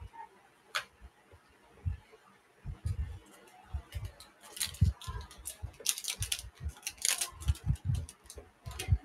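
Scattered soft thumps, knocks and clicks at uneven intervals, busier in the second half: someone moving about and handling things near a phone lying still.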